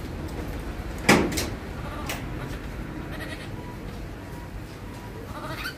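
A short, loud animal cry about a second in that drops in pitch as it fades, followed by a faint click.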